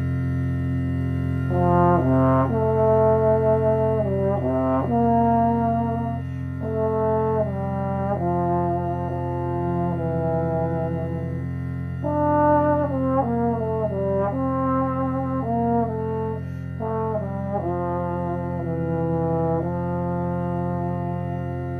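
Trombone playing a slow melody in short phrases, entering about a second and a half in, over a steady low recorded cello drone.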